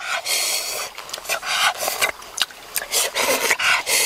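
Hands tearing open a durian and pulling apart its soft, sticky flesh: an irregular run of rustles, crackles and wet, squishy clicks.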